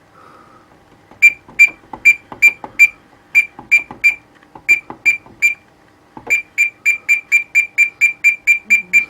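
Gent Xenex fire alarm control panel's internal buzzer beeping during a display test. It gives short, high beeps, first in short runs, then from about six seconds in a steady fast pulse of three to four beeps a second.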